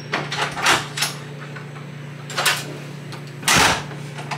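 Hotel room door opened and shut: several light clicks and rustles from the lock and handle, then the door closing with a thud about three and a half seconds in, over a steady low room hum.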